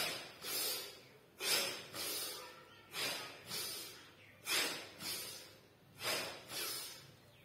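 A man's forceful breathing during a standing yoga breathing exercise. He takes a breath in and a breath out in pairs, about one pair every second and a half, in time with raising the arms and bending forward.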